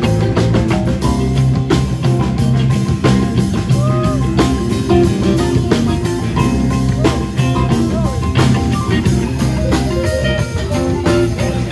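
Live band playing rock music: electric guitar over congas struck with sticks and a drum kit, with a steady beat.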